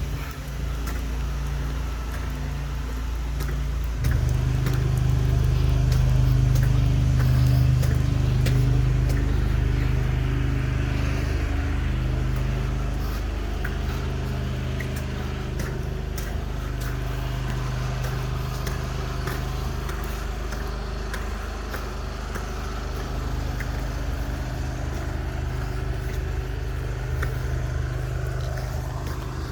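Pressure washer's engine running steadily, with the hiss of its water jet cleaning concrete. It steps up louder about four seconds in.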